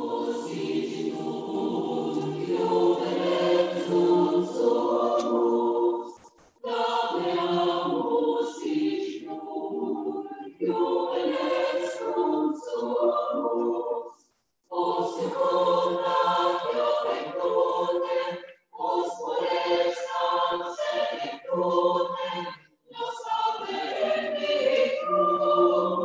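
Choir singing a slow song in sustained phrases of about four seconds each, with short breaks between the phrases.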